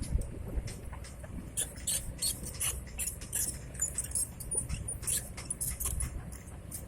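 Heavy construction machinery running with a steady low engine rumble, overlaid by irregular light metallic clicks and rattles.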